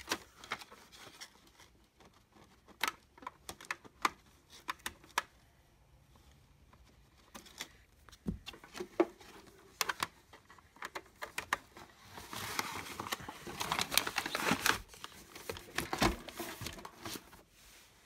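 Hands unplugging and handling an HDMI cable: scattered clicks and light knocks of the plug and cable, with a denser stretch of rustling about two-thirds of the way through.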